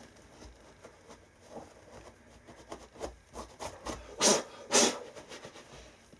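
Shoes being cleaned by hand: soft rubbing and handling noises, then two loud short swishes about half a second apart.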